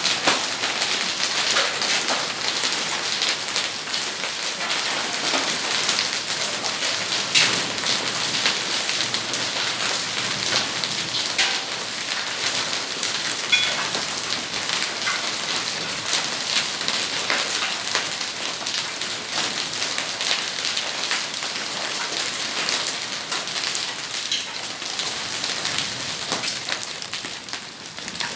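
Heavy rain pouring steadily onto hard surfaces, a dense hiss full of individual drop splashes.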